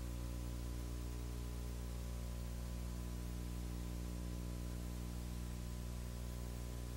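Recording noise only: a steady electrical hum with a ladder of overtones, a faint constant tone, and an even hiss, unchanging throughout. It carries no program sound, typical of an old videotape transfer of a silent signed performance.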